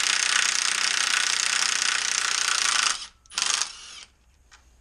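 Milwaukee cordless 3/8-inch impact wrench hammering on a nut to loosen it. It stops about three seconds in, gives one short second burst, and the motor hums briefly as it winds down.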